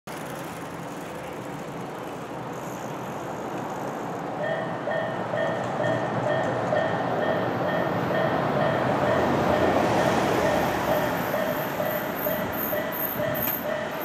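A Japanese railroad crossing alarm starts about four and a half seconds in, an electronic bell ringing about three times a second, while the running noise of a Tobu Kameido Line train swells louder and peaks around the middle of the ringing.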